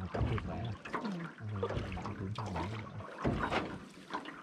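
A rowboat's oars dipping and splashing in water as the boat is rowed along, with a louder splash about three seconds in.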